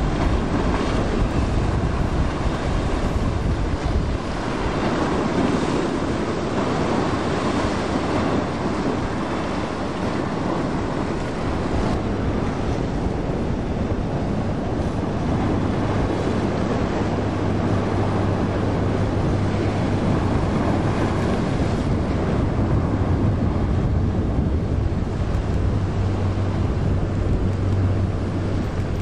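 Wind buffeting the microphone over the rush of waves and boat wake, with a steady low engine drone from a passing sportfishing yacht that becomes plain about halfway through.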